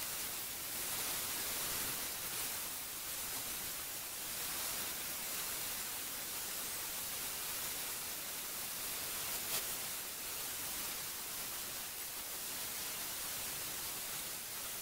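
Steady, even hiss, brightest in the high pitches, with one faint tick about two-thirds of the way through.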